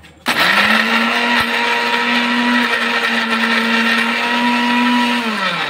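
Electric mixer grinder running at full speed, grinding dry biscuits to powder in its steel jar. The motor whirs up quickly about a quarter-second in, holds a steady high hum with a rattling hiss from the grinding, then winds down near the end.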